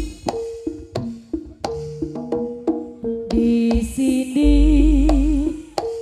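Live jaranan gamelan accompaniment: sharp drum strokes several times a second over stepping metallophone notes, with a deep gong stroke about four and a half seconds in under a wavering held tone.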